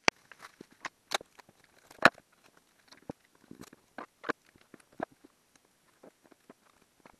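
Clear plastic wrap crinkling and crackling as it is pulled and pressed flat over a sheet, in irregular sharp clicks.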